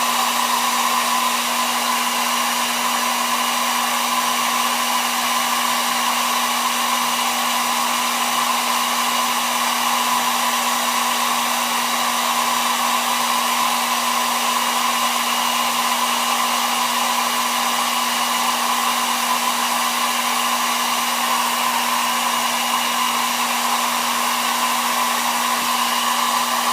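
Hot-air blower running steadily, blowing heat onto the phone's glass to soften the adhesive under it. A constant whooshing noise with a low motor hum, unchanging throughout.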